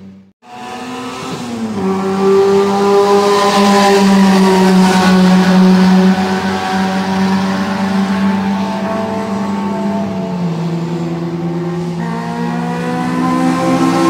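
Racing car engine running at high revs, a strong steady engine note that rises about a second and a half in and steps down in pitch twice, around the middle and again later. The sound drops out for a moment at the very start.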